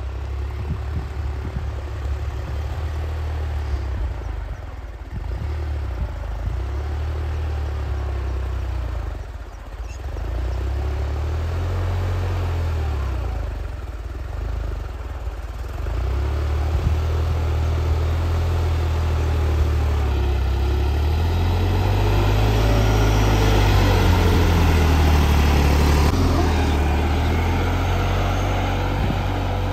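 Tractor diesel engine running steadily under load, pulling a tillage cultivator through ploughed soil. It grows louder and fuller in the second half as the tractor comes close.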